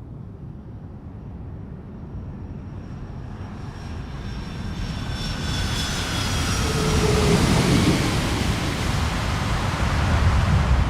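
Jet aircraft flying past: the noise builds steadily, with high whining tones that slide slightly lower in pitch. It is loudest about seven seconds in, and a low rumble carries on after.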